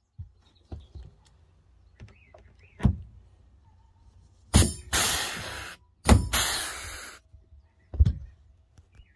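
Harbor Freight pneumatic air riveter setting pop rivets through thick marine carpet: twice a sharp burst followed by about a second of hissing air, with a few lighter clicks and knocks in between.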